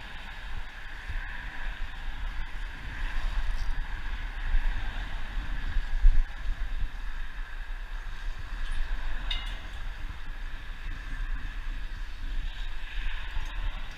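Steady wind buffeting the microphone, a low rumbling rush with no break.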